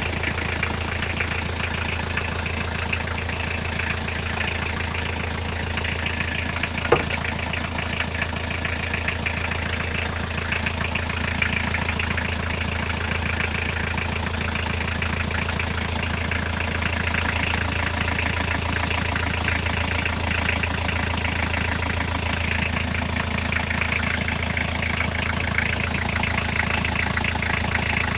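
Toyota C1 engine idling steadily with a fast, rhythmic knock under the running note: an unexplained knock whose cause the owner is asking about. One sharp click stands out about seven seconds in.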